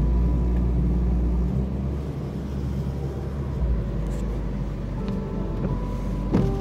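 Steady low rumble of a car in motion, with soft sustained music notes held over it that change a few times.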